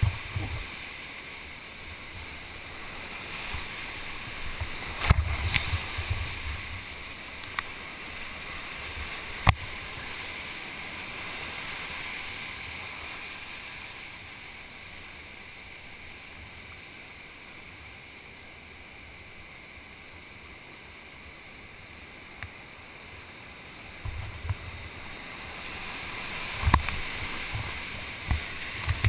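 Churning whitewater rushing around a kayak running a class IV rapid: a steady hiss of water, easing for a while in the middle, with a few sharp knocks and splashes against the boat.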